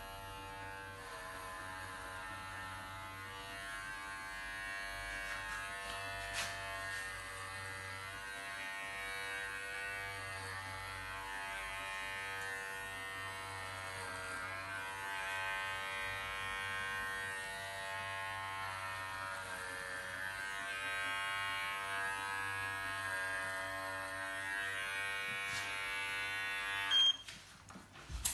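Electric CODOS pet clipper with a 13 mm ceramic blade running steadily while clipping a dog's soft, curly coat. Its hum dips slightly in pitch now and then, and it cuts off near the end.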